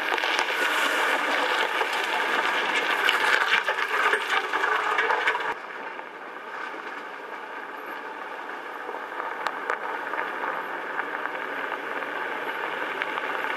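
ATV engine running while riding over rough ground, with rattling. It drops suddenly to a quieter level about five and a half seconds in, then runs on steadily.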